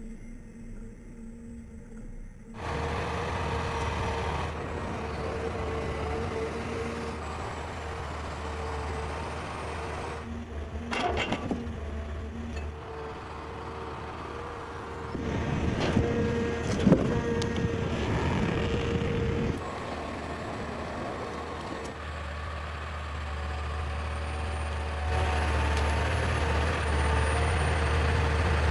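Diesel engine of a heavy forestry machine running steadily, with a few sharp knocks partway through. The sound changes abruptly several times.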